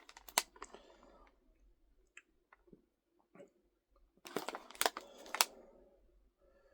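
Crunchy crackers topped with pizza sauce and cheese being bitten and chewed close to the microphone: scattered soft crackles, then a run of sharp crunches about four to five seconds in.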